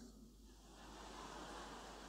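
Near silence: a faint, even background hiss of room tone.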